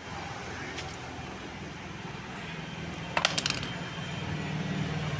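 Light metallic clinks, one about a second in and a sharper cluster about three seconds in, over a steady low hum.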